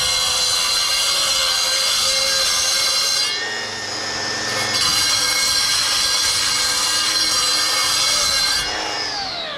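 A power saw with a diamond blade cutting a stone pool coping piece to length: a loud, steady high-pitched whine that dips briefly a few seconds in as the blade loads, then winds down with a falling pitch near the end.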